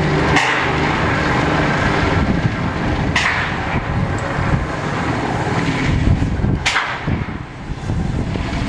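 Narrow-gauge steam locomotive turning on a depot turntable: a steady rumble, broken by short hisses about every three seconds.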